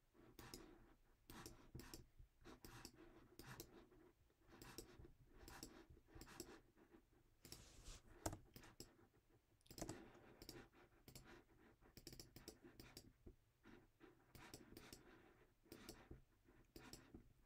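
Faint, irregular clicks and taps, sometimes several a second, from working the charting program while switching chart views and drawing lines. One sharper click comes about 8 seconds in.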